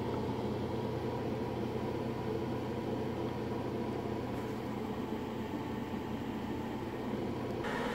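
Cooling blower of a homebuilt 8877 (3CX1500) valve RF amplifier running steadily: an even rush of air with a low hum under it. The blower is cooling the tube while its filament is lit, before the high voltage is switched on.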